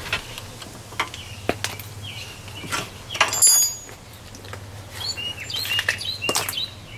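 Birds chirping, with scattered clicks and knocks of hand tools and metal parts as battery ground wires are unbolted. A sharp ringing metal clink about three and a half seconds in is the loudest sound.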